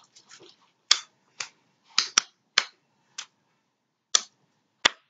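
Homemade clear-glue borax slime squeezed and kneaded in the hands, giving about eight sharp popping clicks at uneven intervals.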